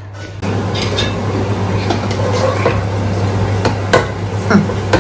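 Pot of red stew sizzling on the stovetop under a steady low hum, as pieces of cooked meat are moved into it by hand. A couple of sharp knocks against the pot near the end.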